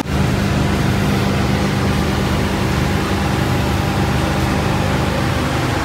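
Steady low mechanical hum with a constant low droning tone, unchanging throughout.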